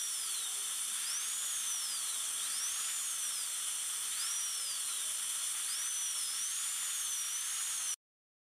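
High-speed dental air-turbine handpiece with a bur cutting a tooth preparation: a steady high hiss with a whine that rises and falls in pitch several times. It cuts off suddenly near the end.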